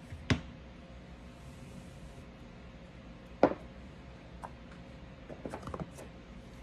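Parts of a field-stripped Smith & Wesson M&P Shield Plus pistol being set down on a towel-covered table: two sharp knocks about three seconds apart, then a few light clicks near the end.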